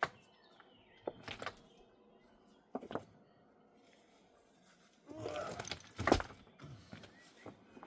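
Scattered sharp knocks and clacks of stone on stone as building stones are handled and worked, a few single strikes and then a busier cluster with the loudest knock about six seconds in.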